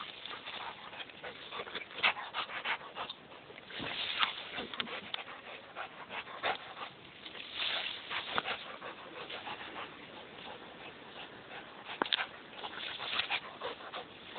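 A rottweiler panting as she tugs at tree branches, with irregular crackling and rustling from the twigs and leaves.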